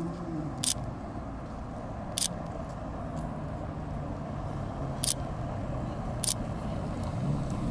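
Aston Martin sports cars driving up the street at low speed: a steady engine rumble with tyre noise on the road. A few sharp clicks sound at irregular moments.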